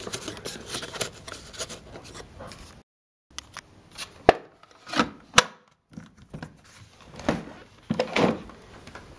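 Handling noises from a vacuum cleaner's bag compartment and microfilter being fitted: rubbing, with several sharp knocks and clicks around the middle and again near the end. The motor is not running.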